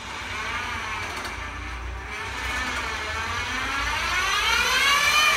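Electric drive motor of a Zonzini Domino tracked stair climber whining as it drives its tracks under a 160 kg load. The whine dips slightly, then rises in pitch and grows louder, and stops suddenly at the end.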